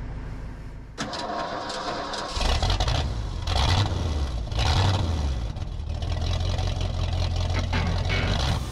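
Flatbed pickup truck's engine starting about two seconds in, revved up twice, then running steadily.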